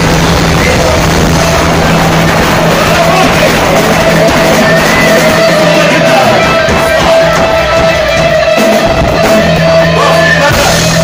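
Loud rock music led by a distorted electric guitar holding sustained notes.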